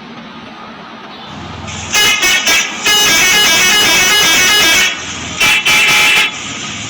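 Bus telolet horn: three short toots, then a roughly two-second multi-note tune stepping through several pitches, then two more short blasts, over the rumble of the bus.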